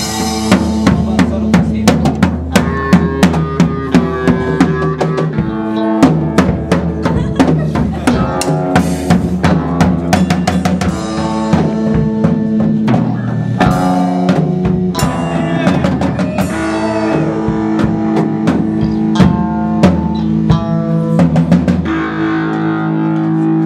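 A rock band playing: drum kit with bass drum and snare hits under guitar and bass chords.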